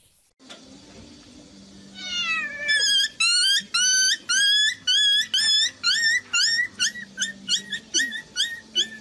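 High-pitched squealing cries from a young animal, starting about two seconds in as a quick, even series of about three a second. Each cry slides up and then holds. The cries grow shorter and quicker near the end.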